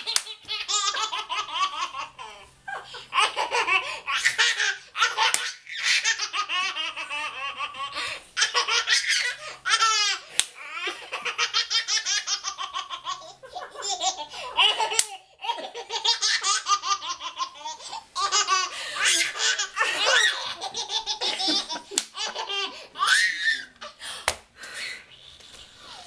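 A toddler girl laughing hard, unstoppable giggles and belly laughs in long bouts with short breaks between them.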